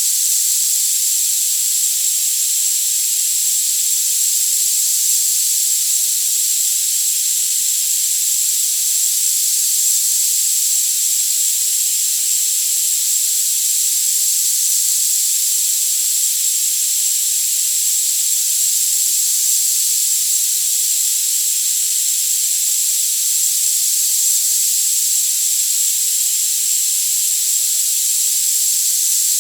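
Tinnitus-masking sound: a steady, loud, high-pitched hiss with no low end, and a constant very high whistle-like tone held beneath it, unchanging throughout.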